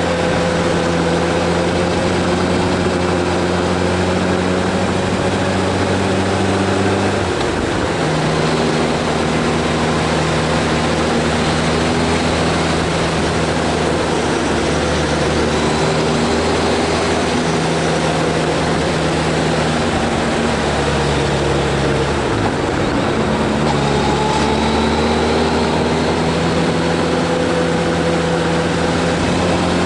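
Vehicle engine droning steadily while climbing a winding mountain road. The hum drops out briefly and steps to a new pitch twice, about a quarter of the way in and again about three quarters in.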